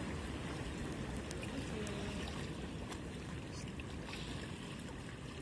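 Sea water washing and lapping steadily against concrete breakwater blocks, with a few faint clicks.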